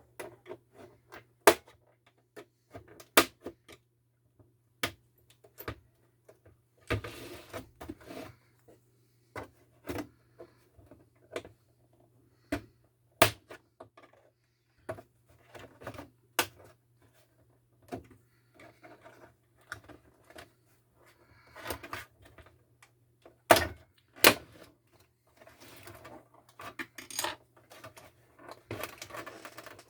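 Irregular sharp clicks, taps and knocks, with short bursts of rattling, as of a monitor's casing and parts being handled with tools, over a faint steady low hum.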